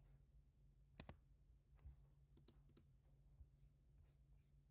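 Near silence: room tone with a low steady hum and a few faint clicks, a pair about a second in and several more in the middle.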